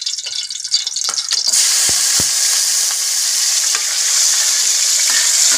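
Chopped garlic sizzling in hot cooking oil in a pan. The sizzle grows louder about one and a half seconds in, with two light knocks just after.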